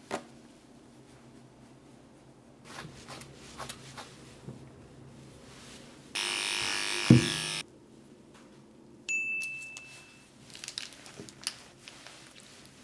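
A burst of hissing noise about six seconds in, lasting about a second and a half with a sharp knock in the middle. About nine seconds in comes a single bell-like ding on one steady high tone that fades out. Faint handling clicks are heard in between.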